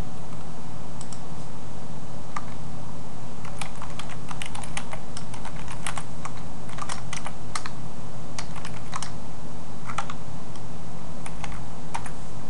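Typing on a computer keyboard: scattered keystrokes, with a dense run of quick key clicks from about three to seven seconds in, over a steady low hum.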